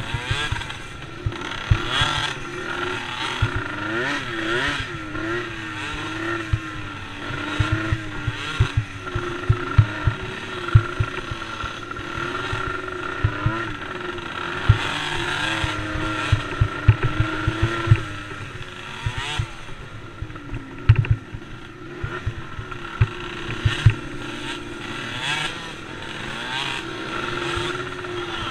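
Small youth racing ATV engine, a DRR DRX90, revving up and down as it runs around a race track, with frequent low thumps of wind buffeting on the microphone.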